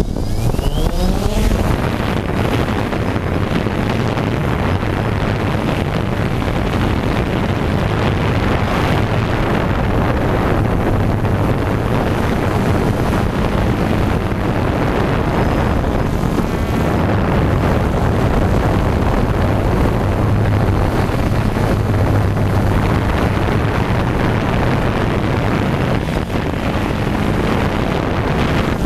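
Camera drone's electric motors and propellers spinning up in a rising whine at takeoff, then running in a steady, loud buzz and rush as it flies.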